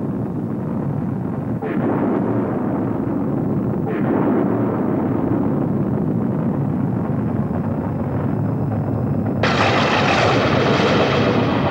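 Deep, dense rumbling like thunder. It swells at about two and four seconds in, then breaks into a louder, brighter surge near the end.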